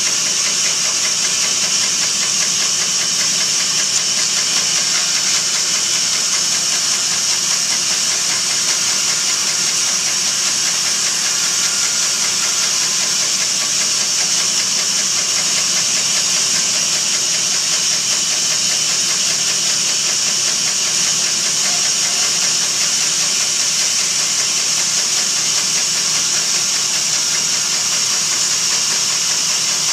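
Electric power saw running steadily while cutting a wood slab, a loud even whir with a strong hissing edge that does not change.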